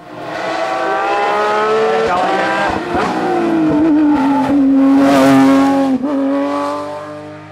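Porsche 911 GT3 rally car's flat-six engine at full throttle, revving hard through several gear changes, its pitch climbing and dropping at each shift. It cuts off suddenly near the end.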